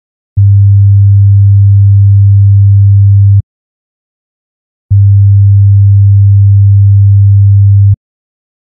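Pure sine-wave test tone, low in pitch at around 100 Hz, played twice for about three seconds each with a silent gap between, for naming its frequency by ear.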